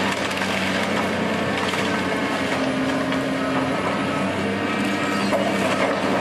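Caterpillar tracked excavator's engine running steadily while its demolition attachment tears into a wood-framed building, with timber splintering and debris crashing and clattering.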